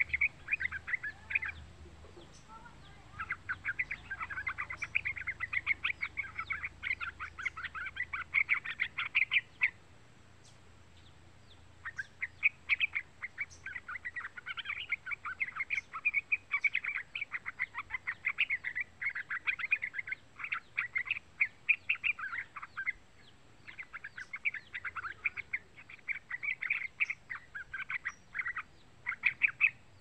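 Young yellow-vented bulbul singing in long runs of rapid chattering notes, broken by pauses of one to two seconds.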